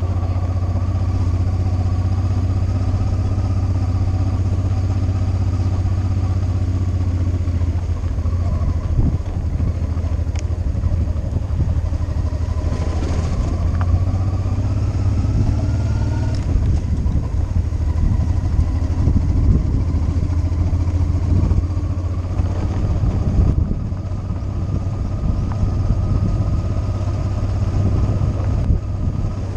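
Motorcycle engine running steadily while riding. From about eight seconds in it is joined by an uneven rattle and jolting from the rough dirt road.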